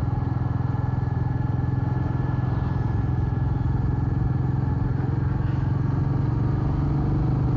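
Royal Enfield Meteor 350's single-cylinder engine running steadily at an even, unchanging pitch while riding.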